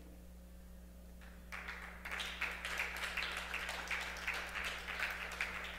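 Faint applause from a congregation, starting about a second and a half in, with a steady electrical hum underneath.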